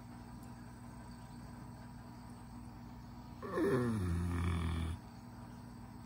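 A sleeping pet snoring: one loud snore starts about three and a half seconds in and lasts about a second and a half, its pitch sliding down at the start and then holding low and steady.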